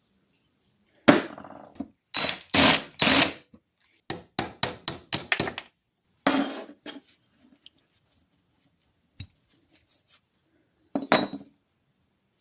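Hand work on a pair of steel locking pliers: a sharp knock, then a few longer strokes and a quick run of short strokes, with single hits near the middle and the end.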